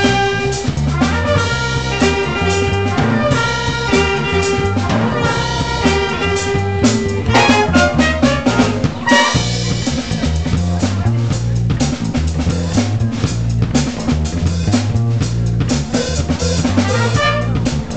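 Live jazz band playing: trumpets and saxophones hold notes over a bass line and drum kit for the first seven seconds or so. After that the horns mostly drop out and the drum kit and bass carry the groove.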